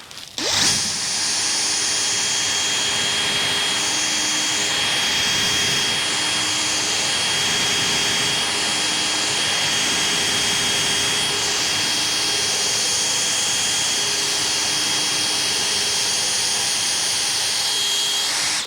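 Power drill with a 1/4-inch wood bit running steadily, boring a pilot hole for a lag bolt into a hardwood support post. It is a steady high whine that starts about half a second in and stops abruptly at the end.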